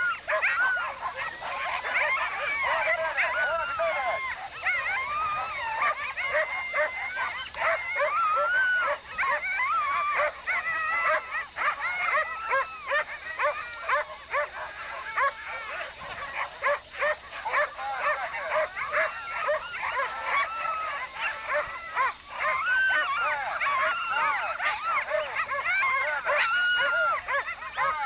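Many harnessed sled dogs barking and yelping at once in a dense, unbroken chorus, the excited din of a team held back at the start line and eager to run.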